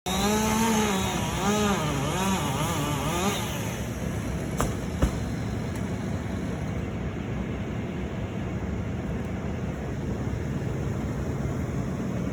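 An engine revving up and down several times, then running at a steady speed, with two sharp knocks about five seconds in.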